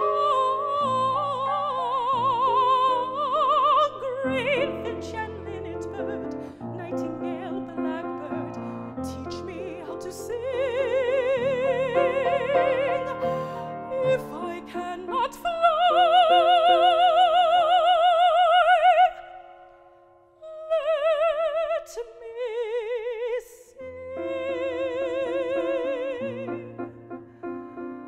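Operatic female voice singing with wide vibrato over grand piano accompaniment. A long, loud high note is held in the middle, then breaks off for a moment before shorter phrases and another sustained note.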